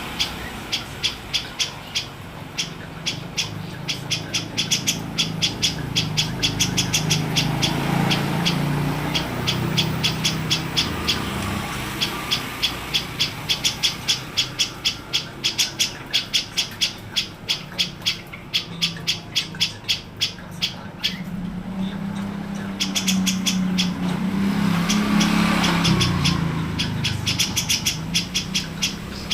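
Songbird masteran recording: long runs of sharp, high chirps repeating several times a second, broken by short pauses, over a low steady hum.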